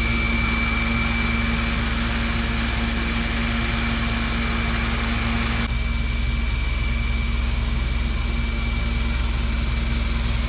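A medical helicopter running on the ground with its rotor turning: a steady high turbine whine over a fast low rotor beat. The hiss drops abruptly about six seconds in while the whine carries on unchanged.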